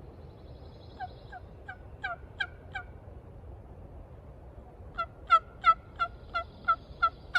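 Turkey yelping: a run of six short, evenly spaced notes, then from about five seconds in a louder run of about eight, each note dropping slightly in pitch.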